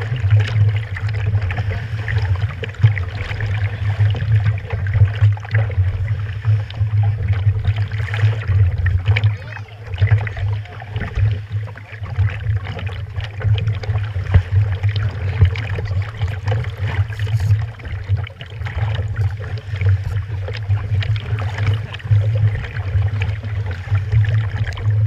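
Choppy sea water sloshing and slapping against a floating jet ski's hull, with a continuous low rumble and irregular splashes.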